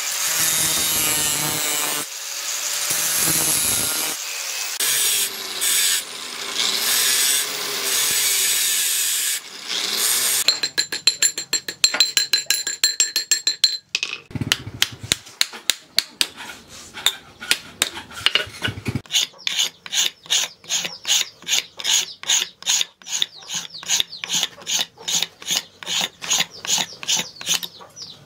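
Angle grinder with a cutting disc running against steel tubing for about ten seconds, then a long series of fast, regular hand-hammer strikes on metal on an anvil, each ringing briefly.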